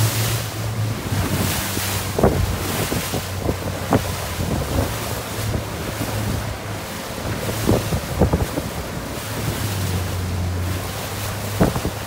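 A 21-knot wind buffets the microphone over choppy, breaking waves. A boat engine's low hum fades in and out, and several sharp slaps of water hit the hull.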